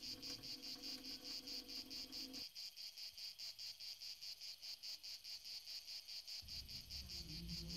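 Insects chirping in a steady, fast pulse, about seven chirps a second. A low drone comes in near the end.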